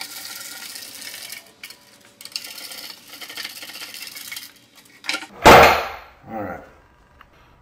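Hand screwdriver driving a screw into a panel of the spline jig, a scratchy grinding in two spells of a couple of seconds each. About five and a half seconds in comes a loud knock on the wooden workbench, the loudest sound, followed by a smaller knock.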